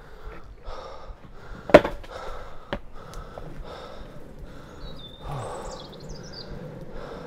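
A longboard is dropped onto a damp tarmac path with a sharp knock about two seconds in, then its wheels roll over the tarmac. A bird chirps briefly past the middle.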